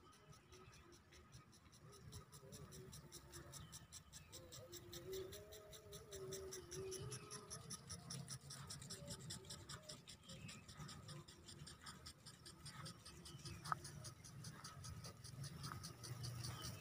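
Faint rapid ticking and hiss of impact sprinklers watering grass, over a low rumble, with a single brief click about three-quarters of the way through.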